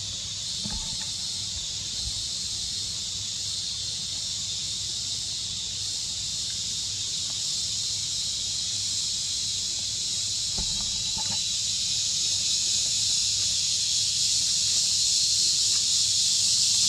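Steady, high-pitched insect chorus that grows gradually louder.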